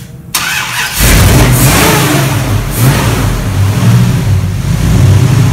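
Rat rod truck's engine being revved: after a brief dip it comes up loud about a second in and keeps running hard, the revs swelling and easing several times.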